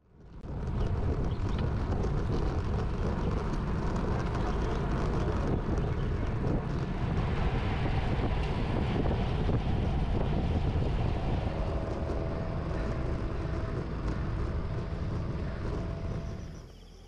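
Wind rushing over the microphone of a camera on a moving road bike, a heavy steady rumble. It fades in over the first second and drops away near the end.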